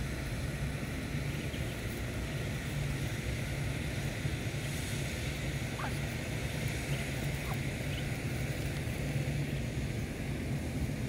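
Steady low outdoor rumble, with two faint short peeps from Muscovy ducklings around the middle.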